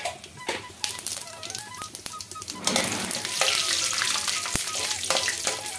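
Peanuts and tempering spices frying in hot oil in a metal kadai, with a ladle stirring them. The sizzling and crackling grows much louder about two and a half seconds in.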